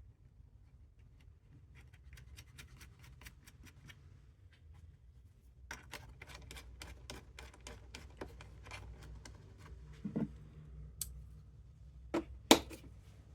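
Runs of small, quick clicks, several a second, from parts being fitted and a fastener being worked by hand on a chainsaw's air filter cover, with a few louder knocks near the end.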